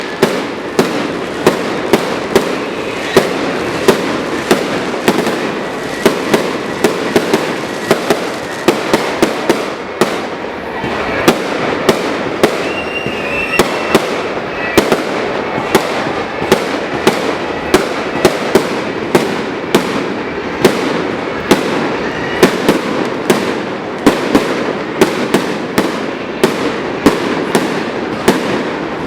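Fireworks display going off in a rapid barrage: sharp bangs several times a second over a continuous crackle. The bangs thin out briefly about ten seconds in, then pick up again.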